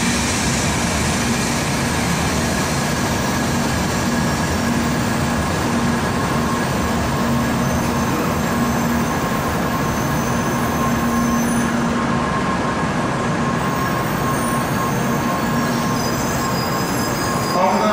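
Shinkansen N700-series train pulling slowly into the platform: a steady rumble of wheels and running gear, with a low hum that fades out about two-thirds of the way through and faint high whines above.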